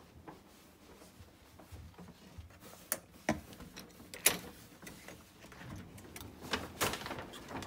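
Sharp clicks and knocks, the loudest about four seconds in and another cluster near the end, as a key card is taken from the wall power slot and a hotel room door's metal lever handle and latch are worked.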